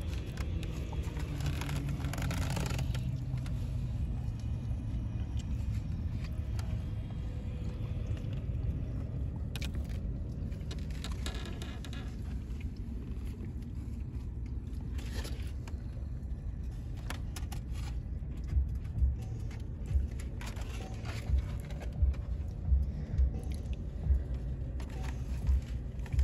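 Steady low rumble of a car interior, with scattered short rustles and clicks. In the last third comes a series of short low thumps.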